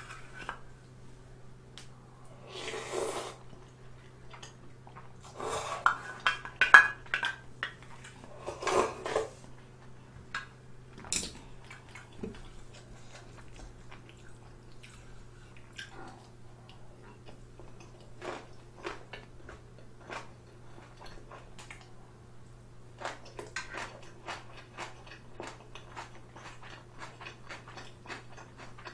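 Close-up eating sounds: a wooden ladle and chopsticks clinking and scraping against a thin aluminium ramen pot and small metal bowl, with a few louder noisy bouts in the first ten seconds. Then chewing, as many short clicks that come thicker near the end.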